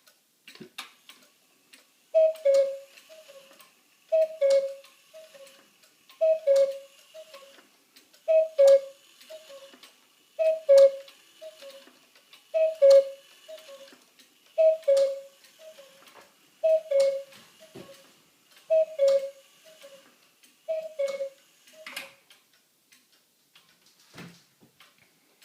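Beha echo cuckoo clock with natural-call pipes calling ten times, about every two seconds. Each cuckoo is a falling two-note call, followed at once by a softer echo of the same two notes. A click from the mechanism marks the start of each call, and the movement ticks faintly between calls.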